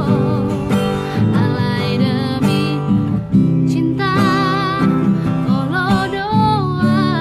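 A woman singing a Batak song over strummed acoustic guitar, her held notes wavering with vibrato from about four seconds in.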